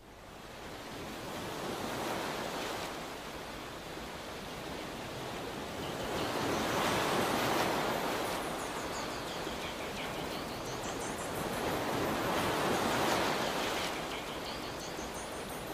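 Sea water sloshing and washing around an action camera held at the water's surface: a rushing hiss that swells and fades about every five to six seconds.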